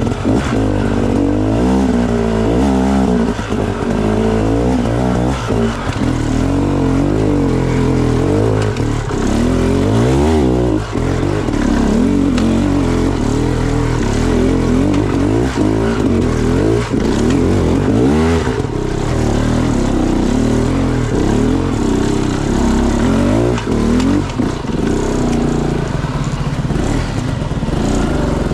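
Off-road motorcycle engine running under changing throttle, its pitch rising and falling as it is revved up and eased off, with a few short sharp revs.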